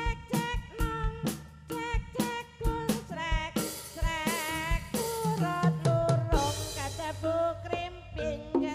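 Jaranan music from a Javanese gamelan ensemble played over a sound system: regular drum strokes with gongs and a wavering melody line above them.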